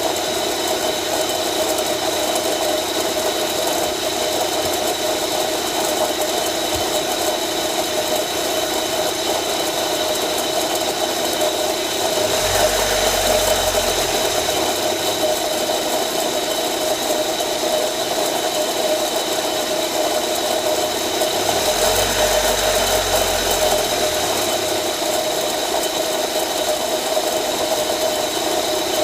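Car engine idling with a steady tonal noise from a bad air-conditioning compressor bearing, running evenly throughout.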